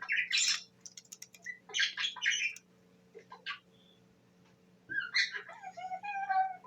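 Budgerigar chirping and squawking in short clustered calls, then chattering into a longer held note near the end.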